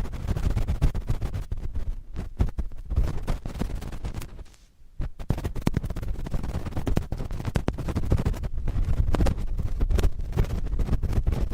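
Cotton swabs scratching and rubbing directly on a microphone: close, dense scratchy strokes with a brief pause about four and a half seconds in.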